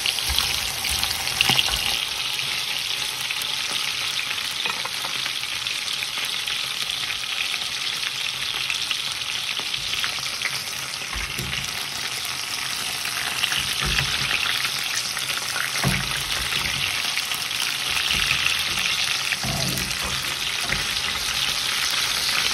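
Chicken thighs sizzling in hot olive oil in a stainless steel frying pan, a steady frying hiss, while the meat browns. A few low knocks come at scattered moments.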